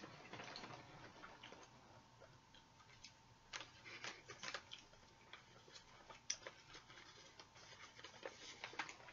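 Near silence, with a few faint, scattered clicks and light rustles from a folded paper fortune teller being handled.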